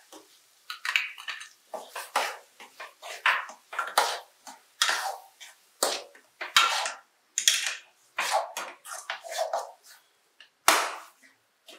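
Slotted metal spatula scraping and clinking against a metal kadai while stirring thick onion-tomato masala with coconut paste, in irregular strokes about one or two a second.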